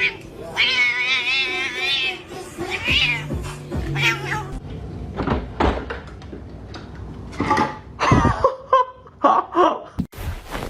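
Cat meowing and yowling: one long wavering yowl about half a second in, a few shorter meows after it, then a quick run of short meows near the end.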